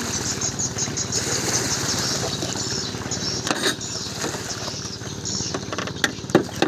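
Small engine on a long wooden drag boat idling steadily. A few sharp knocks sound near the end.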